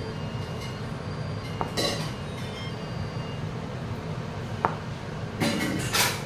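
A ceramic plate being handled, with two faint clinks and a few short brushing noises over a steady low hum of room tone. The brushing noises come about two seconds in and again near the end.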